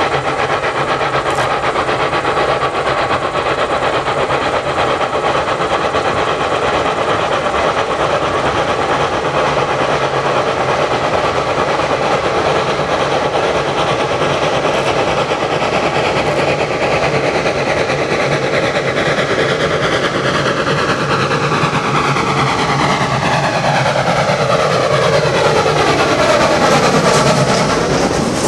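Saxon IK No. 54, a narrow-gauge steam locomotive, working under steam as it approaches. It gets louder and passes close in the last few seconds, followed by its coaches rolling by.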